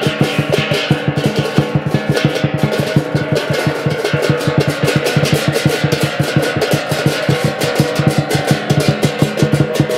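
Chinese lion dance drum beaten in a fast, steady rhythm, with a large hanging gong struck along with it and its metallic ringing sustained beneath the drumbeats.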